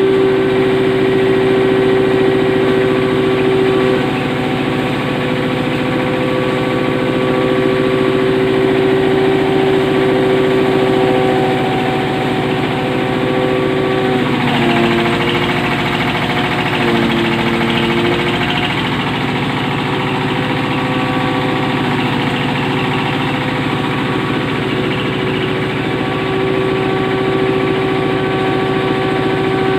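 Hammer mill for dry livestock feed running steadily with a constant humming note. About halfway through, its pitch sags twice for a few seconds while a gritty hiss rises, then returns to speed, as the mill slows under load.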